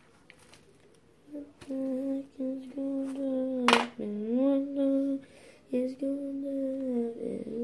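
A child humming in long held notes at nearly one pitch, dipping and rising now and then, starting about a second in. A single sharp click comes in the middle and is the loudest moment.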